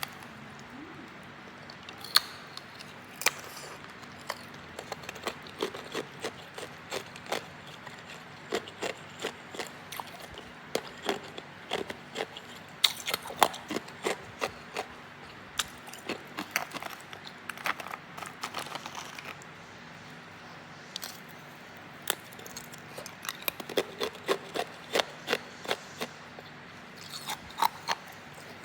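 Hard ice being bitten and chewed: irregular runs of sharp cracks and crunches with short pauses between them.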